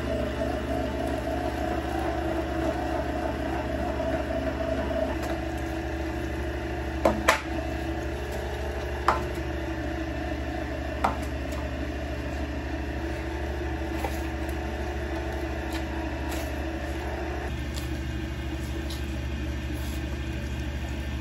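Electric meat grinder running with a steady motor hum while cooked pork is fed through it. Several sharp knocks come in the middle.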